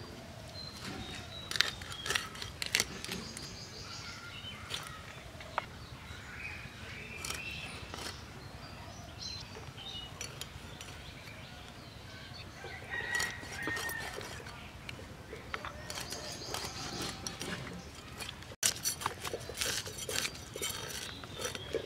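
Hens clucking with short calls, over the scraping and chopping of a tilapia against a large blade: scattered sharp clicks of the blade on scales and bone.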